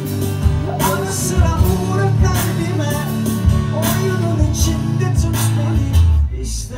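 Live acoustic band playing an instrumental break: a harmonica carries a wavering, bending melody over strummed acoustic guitar, keyboard and a steady beat of light percussion hits. The music thins out for a moment near the end before the guitar comes back in.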